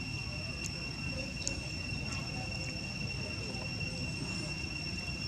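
Steady, high-pitched insect drone (crickets or cicadas) holding one unchanging tone, over a low rumble. A few faint clicks come in the first half, and a faint high chirp comes about four seconds in.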